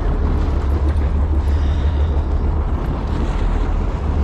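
Wind buffeting the microphone aboard a fishing boat: a steady, loud low rumble.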